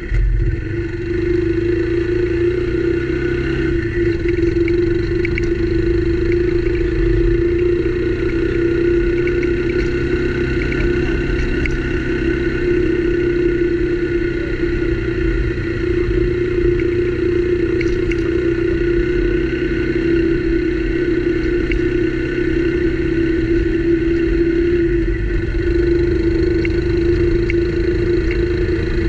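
Motorcycle engine running at a steady pitch while riding along a rough dirt road, with low wind and road rumble under it and a few faint ticks.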